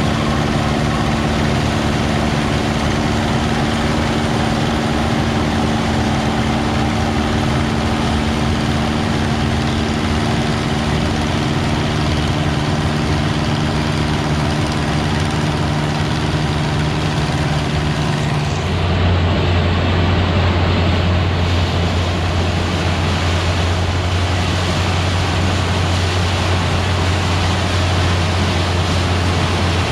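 Engines of vintage harvesting machinery running steadily at work in a corn field. About two-thirds of the way through, the sound changes abruptly to a deeper, steady drone.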